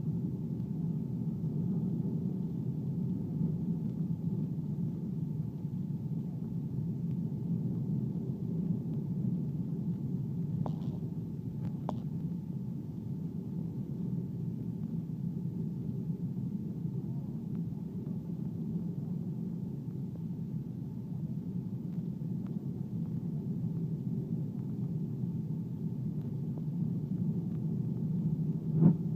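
Steady low rumble of an Airbus airliner's engines and airflow heard inside the cabin on final approach. Two faint clicks come around the middle, and a short knock comes near the end.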